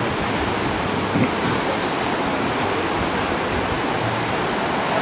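Indian Ocean surf breaking on a sandy beach: a steady, even rush of waves.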